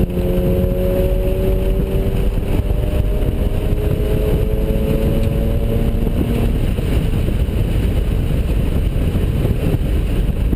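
Mazda RX-7's ported twin-turbo rotary engine pulling under load, its pitch rising slowly for about six seconds, then giving way to a rougher, noisier rush.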